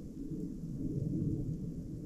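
Blizzard wind: a steady, deep rush with no high hiss and no break.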